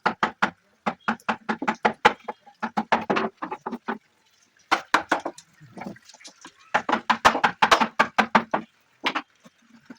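Rapid runs of hammer or mallet blows on wood, about six a second, in bursts with short pauses between them.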